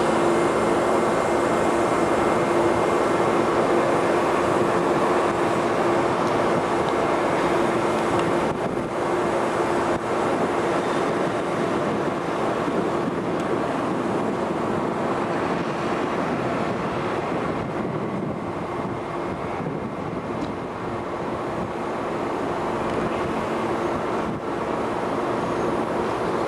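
Steady drone of a ferry's engines and deck machinery, with a constant low hum tone running through it.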